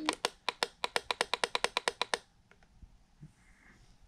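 Capello CR22 clock radio's alarm beeping rapidly, about nine short beeps a second, then cutting off just over two seconds in as it is switched off. A few faint button clicks follow.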